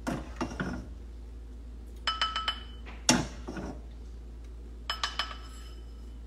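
Serving spoon knocking and scraping against a pan and bowl as food is scooped out: short clusters of sharp clinks and knocks, two of them ringing briefly, with one louder knock midway.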